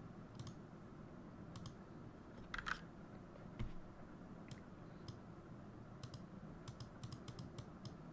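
Faint, irregular single clicks of computer keys or buttons pressed one at a time, about a dozen spread out, with a slightly louder pair about two and a half seconds in.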